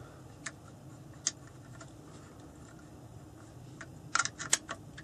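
Light clicks and taps of the aluminium plates of a Rowan Engineering adjustable butt pad being handled and slotted together on a rifle stock, the plate's lugs going into their channels: two single clicks in the first second or so, then a quick cluster of clicks about four seconds in.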